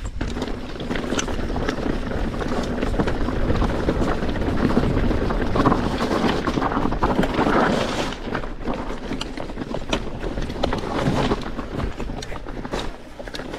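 Mountain bike riding down a rocky trail: the tyres roll over loose stones and the bike rattles with many short knocks, with wind noise on the microphone.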